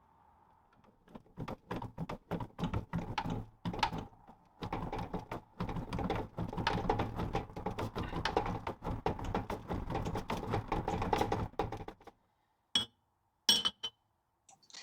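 Rapid, irregular metal clicking and knocking from workshop tools as a pinion bearing is fitted into a Land Rover Series 2 differential. It stops about three seconds before the end, leaving a couple of sharp single clicks.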